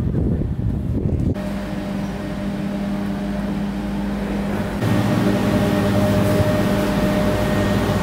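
Vehicle engine running at steady revs: a low rumble at first, then a steady hum that steps up in pitch and grows louder about five seconds in.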